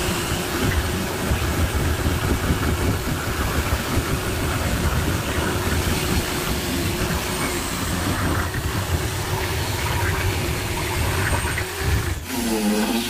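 Electric drill boring small holes through a laminated particle-board table top, its motor running steadily under load. It cuts off about twelve seconds in.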